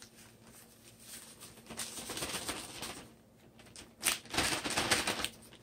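Plastic zip-top storage bag crinkling and rustling as crushed taco shell pieces are shaken out of it, with a sharp crackle about four seconds in and the loudest rustling over the last second and a half.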